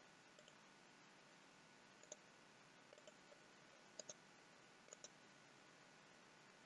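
Faint computer mouse clicks over near silence: a few single clicks, then two quick double-clicks about four and five seconds in.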